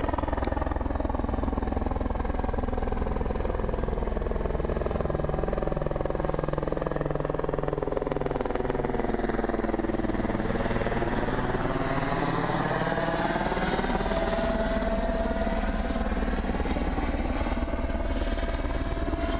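Light helicopter flying low overhead: a steady rotor beat with engine noise whose tone sweeps down and then back up as it passes closest near the middle. A steady high whine comes in about two-thirds of the way through.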